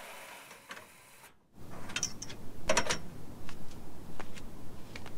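Clicks and rattles from a roof-mounted boat loader's metal arms and rollers as an aluminium dinghy rolls down them, held under tension by the winch. The sound starts after a brief dropout about a second and a half in.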